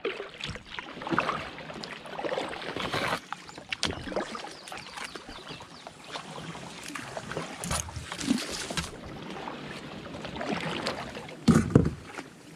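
Kayak paddling through a narrow, overgrown swamp channel: irregular paddle splashes and drips mixed with grass and branches brushing and scraping against the kayak, with scattered clicks and a louder thump near the end.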